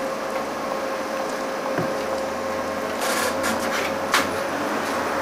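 Passengers climbing the entrance steps of a stationary Blackpool tram: a few knocks and scuffs of feet on the steps, the sharpest about four seconds in, over a steady hum, with a lower hum coming in about two seconds in.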